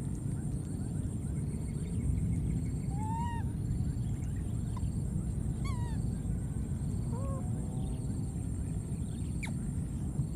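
Infant monkeys giving a few short, arched coo calls and one sharp falling squeak near the end, over a steady low rumble.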